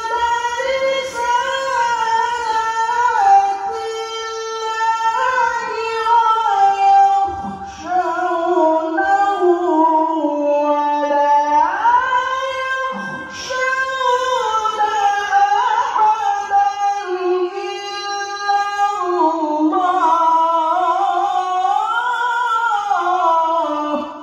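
A male qari reciting the Qur'an in the melodic tilawah style: one voice drawing out long, ornamented held notes that wind up and down in pitch. The phrase ends near the end.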